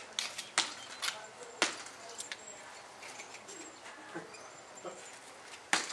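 Sharp knocks of a totem tennis ball, tethered on a string, being hit back and forth: a few quick hits about half a second apart in the first two seconds, then another hit near the end.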